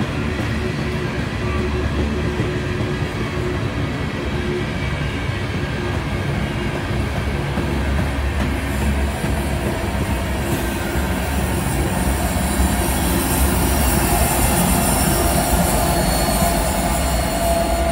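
Canadian National freight train's loaded covered hopper cars rolling past, with steady wheel and rail noise. In the second half the rear distributed-power diesel locomotive, CN 3895, comes up and passes: a deeper engine rumble grows a little louder under a high hiss, with a thin high whine near the end.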